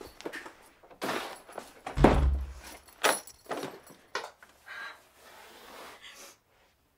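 A hinged bedroom door is pushed shut with a loud thud about two seconds in, among several softer knocks and brushing noises of movement.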